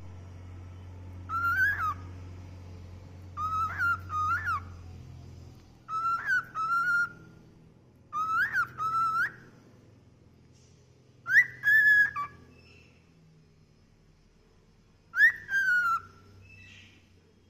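Pet cockatiel whistling: six short calls about every two to four seconds, each a quick upward sweep dropping into a held or falling note.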